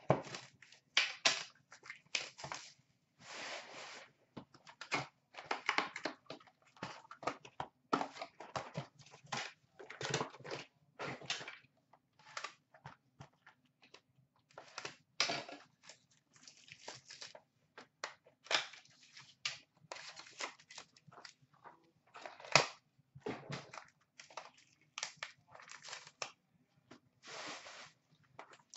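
Cardboard hobby box of trading-card packs being opened and the packs' foil wrappers torn and crinkled: many short, irregular bursts of tearing and rustling.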